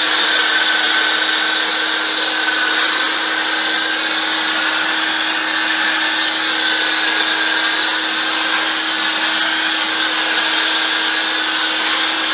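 Pressure washer running through an MJJC Pro foam cannon with a 1.1 mm orifice, spraying car-wash soap foam onto a car: a loud, steady spray hiss over a constant motor hum.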